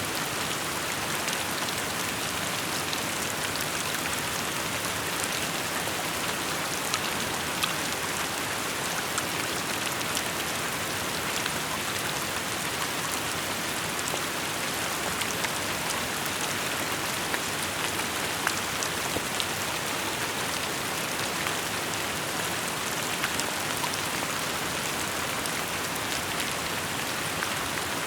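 Steady rainfall, a continuous hiss with scattered individual drops pattering on surfaces.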